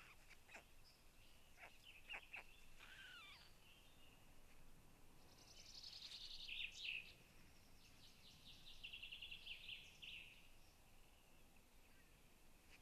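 Faint songbirds singing in the surrounding trees: scattered high chirps at first, then two rapid, high trills near the middle.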